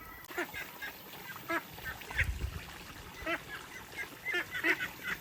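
Domestic waterfowl, ducks or geese, calling repeatedly in short nasal calls several times a second; the calls come thicker and louder toward the end. There is a brief low rumble about two seconds in.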